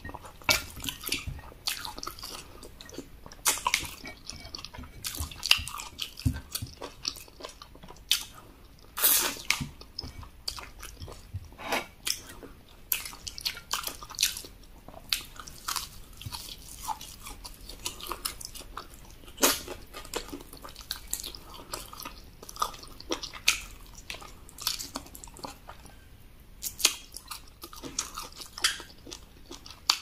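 Close-miked wet chewing and mouth smacking of eba (cassava garri) with egusi soup and goat meat, in many irregular smacks and clicks.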